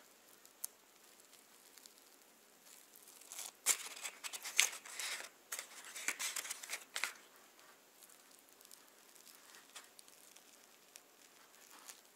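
Crisp crackling and rustling as a crusty garlic cream-cheese bun is torn apart by hand, its paper liner crinkling, mostly in a busy cluster from about three to seven seconds in.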